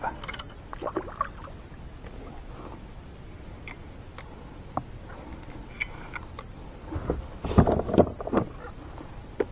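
Handling sounds on a sit-on-top kayak on calm water: scattered small clicks and knocks, then a louder run of thumps and knocks about seven to eight and a half seconds in.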